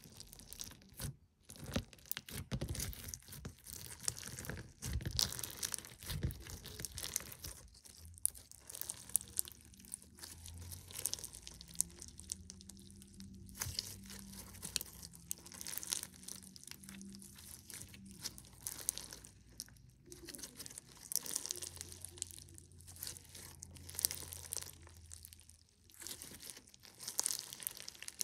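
Clear crunchy slime packed with plastic perler beads being pressed, squeezed and stretched by hand: a dense, irregular crackling and crunching as the beads click and shift in the slime.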